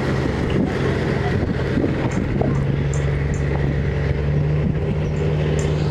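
Fishing boat engine running steadily, its pitch rising a little about four seconds in. Short high bird chirps sound over it from about two seconds in.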